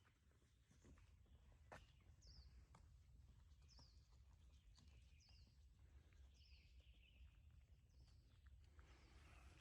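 Near silence with a faint bird calling: short descending chirps repeated roughly once a second, and a single faint click early on.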